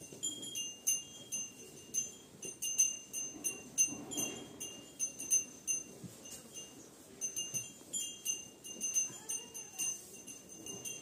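Small metal bells on feeding cattle jingling in short, irregular shakes at a few fixed high pitches as the animals move their heads. Low rustling and munching of fodder sits underneath.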